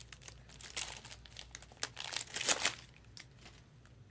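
Trading-card pack wrapper being torn open and crinkled by hand, in a run of short, irregular rustles.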